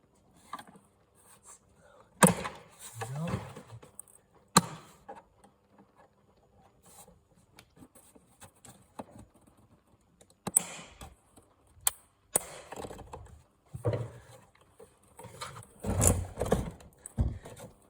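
A Phillips screwdriver prying the plastic front panel off a UPS battery pack: scattered sharp clicks and snaps of plastic, with scraping and handling noise between them.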